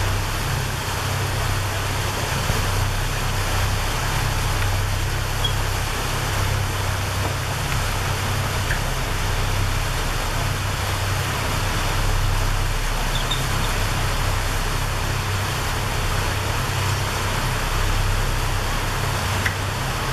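Steady low hum of a cruise ship's engine while under way, with an even hiss over it.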